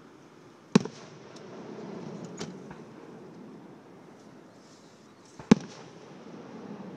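Aerial firework shells bursting: two loud sharp booms, about a second in and about five and a half seconds in, with a softer crack around two and a half seconds and a low rumble in between.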